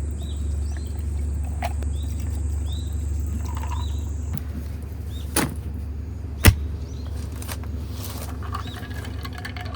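Small birds chirping in short, falling calls over a steady low hum. A thin high steady whine stops about four seconds in, and two sharp clicks come in the middle, the second the louder.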